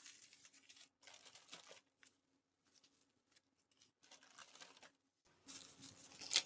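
Faint crinkling and rustling of the kit's packaging being handled, in short irregular bursts with pauses between them, growing louder near the end.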